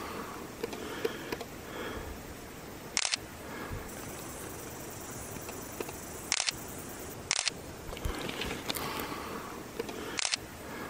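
Camera shutter clicks, four short sharp clicks spaced a few seconds apart, over a steady faint outdoor background.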